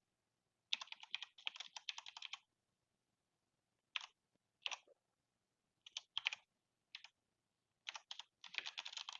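Typing on a computer keyboard: a quick run of keystrokes, a few single key presses spaced about a second apart, then another quick run near the end.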